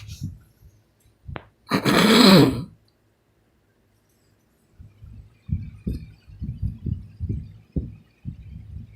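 Unexplained low, muffled thumping in a room, in an uneven rhythm of about two thumps a second, starting about five seconds in. It is preceded by one loud, rough burst with a sliding pitch about two seconds in.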